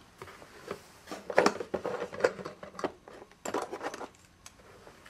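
Rummaging through a box of small junk-drawer odds and ends: small hard objects clinking and rustling as they are moved about, in two clusters of clatter, the second a little after halfway.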